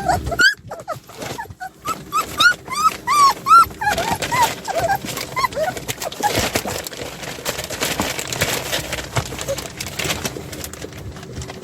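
Puppies whimpering and yipping in a quick series of short, high-pitched cries through the first half, then a stretch of clicks and rustling with only the odd cry.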